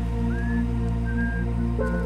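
Background music: a steady bed of held ambient chords with a high whistle-like melody of short notes that slide slightly upward.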